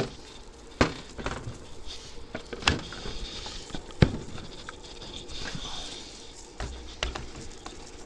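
A few short knocks and clicks from handling a countertop blender: a glass bottle set down on a wooden board, the lid pushed onto the jar of hot soup and the jar seated on its base, the loudest knock about four seconds in.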